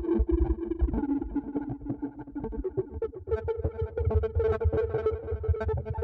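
Korg Wavestate wave-sequencing synthesizer playing: a sustained pad with rapid, rhythmic sequenced notes over a pulsing bass.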